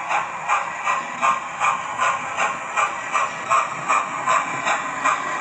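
Hornby A4 OO gauge model steam locomotive with a TTS sound decoder, playing a steady steam chuff through its small onboard speaker at about two and a half beats a second, over a constant hiss.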